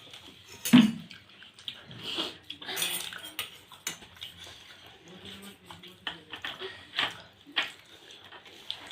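Eating sounds: wet slurping and chewing of soft rice-flour dumplings in milk, with dishes clinking in scattered sharp clicks, the loudest knock about a second in.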